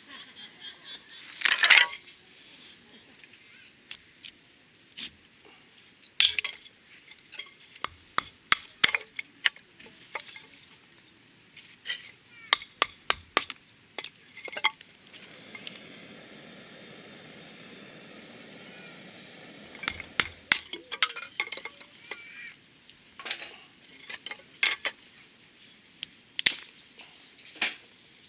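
Metal cookware and utensils clinking and knocking in a string of sharp, irregular clatters. About halfway through, a steady hiss runs for roughly five seconds.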